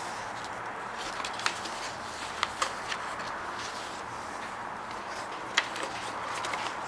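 A sheet of paper being handled and folded, with a few sharp crackles as folds are pressed into creases, the loudest near the end, over a steady hiss.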